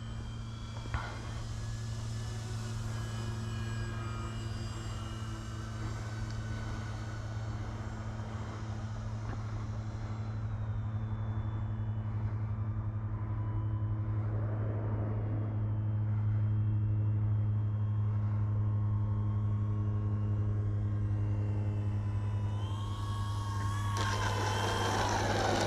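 Twin electric motors and propellers of an RC model airplane droning steadily through its landing approach, with a motor whine above the hum that shifts in pitch near the end.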